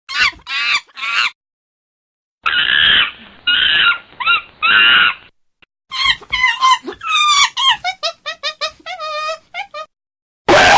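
Monkey calls from several separate recordings spliced together with dead silence between: three short high calls at the start, four longer calls a couple of seconds in, then a quick run of short chattering calls falling in pitch, and a loud screeching call breaking in near the end.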